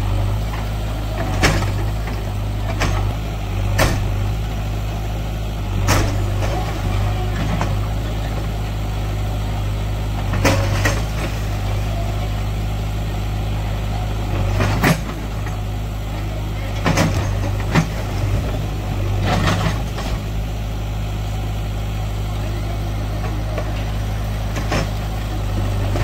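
JCB backhoe loader's diesel engine running steadily while its backhoe bucket breaks into a brick and concrete building, with about ten scattered knocks and crashes of brick and concrete.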